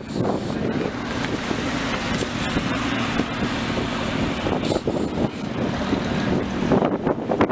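Sports cars rolling slowly past at low speed with their engines running. Wind buffets the microphone throughout.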